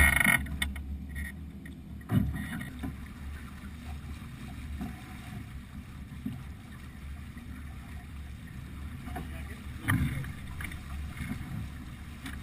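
Water washing along a sailing yacht's hull under sail, with wind buffeting the microphone as a steady low rush. Short louder bumps or gusts come right at the start, about two seconds in and near ten seconds.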